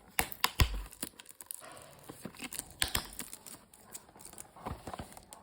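Smartwatch packaging being handled: irregular sharp clicks and taps with crinkling and rustling of plastic and cardboard.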